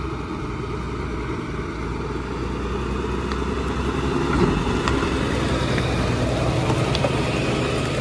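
The diesel engine of a DAF lorry carrying a shipping container runs steadily as the lorry drives in and passes close by. It grows louder as the lorry draws near, about halfway through.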